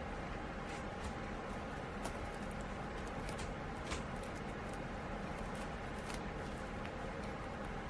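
Steady low room hum with scattered faint, crisp clicks and crunches, as a guinea pig nibbles at a woven grass chew mat.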